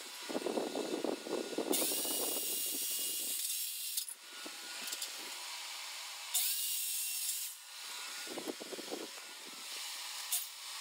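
Corded circular saw trimming the overhanging ends of laminate flooring planks on a tabletop, in several separate short cuts.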